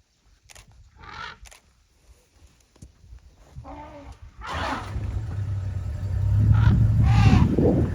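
Vehicle engine coming in about halfway through and running with a steady low hum that grows louder, after a few faint clicks and short sounds.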